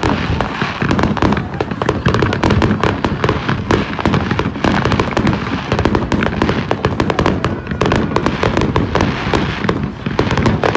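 Fireworks display: aerial shells bursting in a rapid, dense string of bangs and crackles, with a deep rumble beneath.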